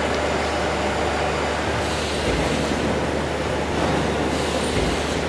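Steady machine noise with a low hum underneath.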